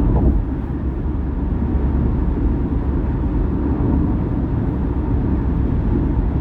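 Steady, low tyre and road rumble of a car cruising at highway speed.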